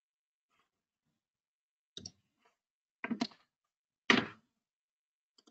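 A few short, sharp clicks and taps on a computer, about four in all starting about two seconds in, the last and loudest a little after the middle.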